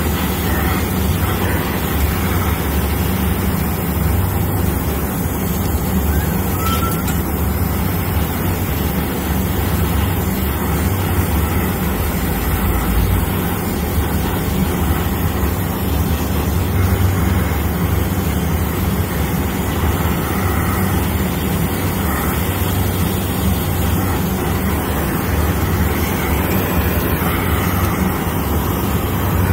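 Brazing torch flame burning steadily on a copper refrigerant line joint, over a steady low machinery hum.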